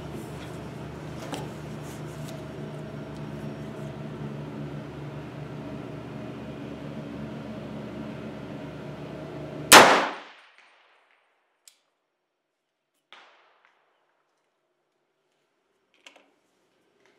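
A single loud shot from a .300 AAC Blackout AR-15 rifle with a 16-inch barrel, about ten seconds in, with a short ringing tail. A steady background hum comes before it, and a few faint clicks follow.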